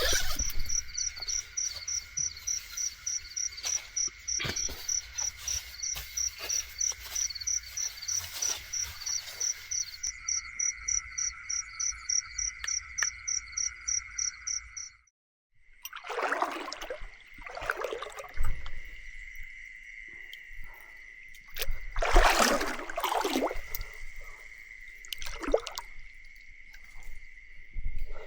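Night chorus of insects and frogs: a steady high insect drone with a fast pulsing call at about three to four pulses a second. After a sudden break about halfway, the drone continues under several short rushing, water-like sounds, the loudest about three quarters of the way in.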